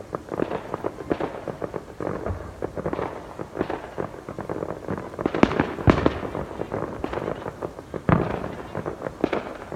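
Fireworks going off: a dense, irregular run of crackling pops with several louder booms, the loudest about halfway through and another near the end.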